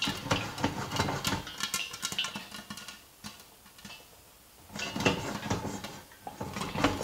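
Popcorn kernels popping thickly inside a lidded stainless-steel pot on a gas burner, with the pot being shaken. The pops thin out for a second or two past the middle, then pick up again.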